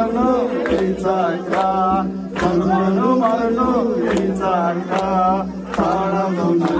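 Devotional aarti bhajan: several voices chant a hymn together over a steady low held note, with a short sharp percussive strike roughly every second.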